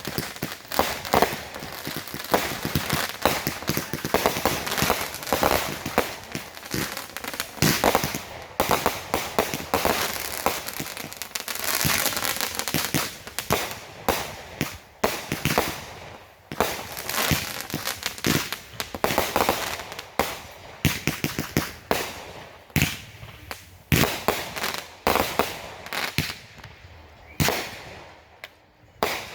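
Consumer fireworks going off in rapid succession: a dense string of bangs mixed with crackling, thinning to scattered separate bangs near the end.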